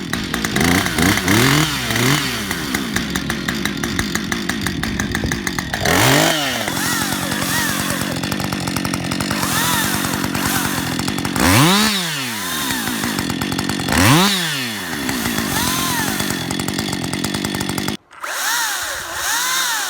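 Petrol chainsaw idling and revved up and down several times. About 18 seconds in it cuts abruptly to a Makita DUC353 cordless battery chainsaw whirring up and down, quite a lot quieter.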